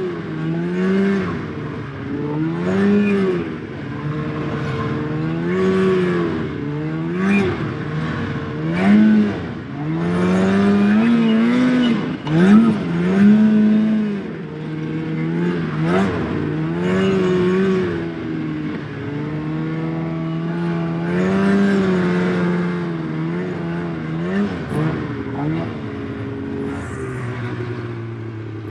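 Snowmobile engine revving up and down over and over while riding, its pitch rising and falling every second or two. It settles to a lower, steady note near the end.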